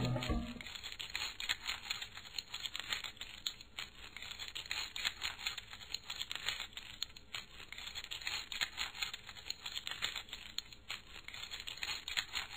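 Music cuts off about half a second in, leaving a faint, dense, irregular crackling.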